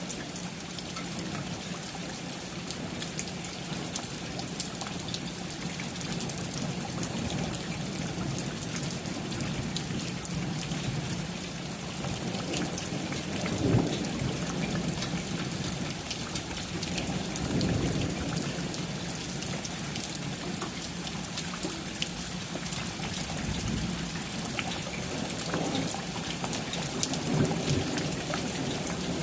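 Steady rain with many individual drops ticking, and low thunder rumbling in several swells, the strongest about halfway through.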